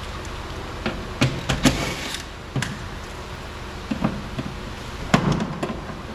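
Irregular clicks and knocks with a short scraping rustle about two seconds in: hand work on a car door's inner parts and trim pieces being moved.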